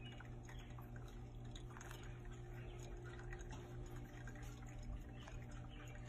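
Faint pouring and dripping: hot water trickling onto coffee grounds in a stainless steel mesh pour-over filter, and brewed coffee dripping into a glass carafe below, as many small irregular ticks. A steady low hum runs underneath.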